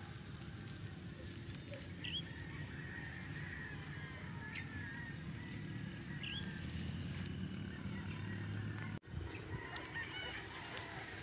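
Outdoor ambience: a steady low rumble, typical of wind on the microphone, with a few short calls from fowl.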